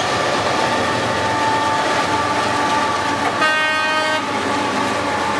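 CSX freight train with GE diesel locomotives passing close by, engines and wheels on the rails making a steady loud rumble. A short horn toot of under a second sounds about three and a half seconds in.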